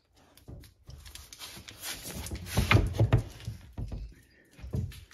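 Rummaging in an under-sink cupboard: irregular knocks and clinks of glass jars and bottles being shifted about, loudest a little past halfway through.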